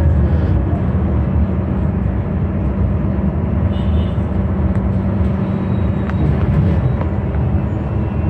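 Steady low rumble of motor vehicles running, with no clear change.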